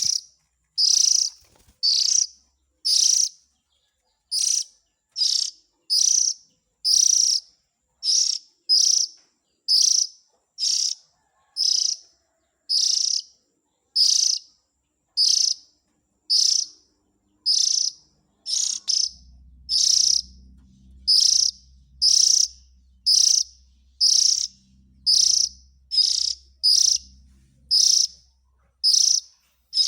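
Oriental magpie-robin (kacer) giving a short, high call over and over, about once a second at an even pace. This is the call used to lure the species.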